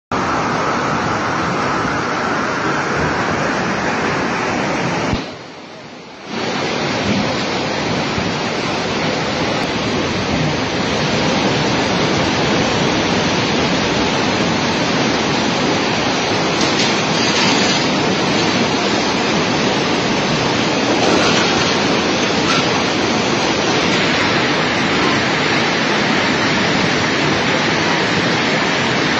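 Flash-flood water rushing in a loud, steady, unbroken torrent. The rush drops away for about a second some five seconds in, then comes back at the same strength.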